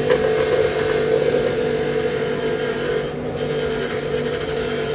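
Clarke 8-inch bench grinder running steadily with a wire wheel, its motor humming while the wire wheel scratches and scrubs a dirty steel pin clean.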